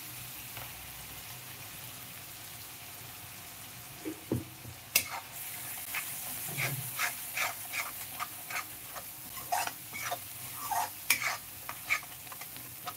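Masala sizzling in hot oil in a metal kadhai as ground spice paste goes in. From about four seconds in, a slotted metal spoon scrapes and clinks against the pan at irregular intervals as the paste is stirred and fried.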